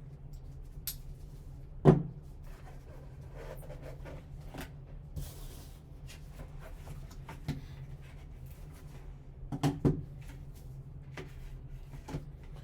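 A small cardboard card box and its sealed packaging being handled and opened: scattered clicks and taps, a sharp knock about two seconds in and a cluster of knocks near the end, over a low steady hum.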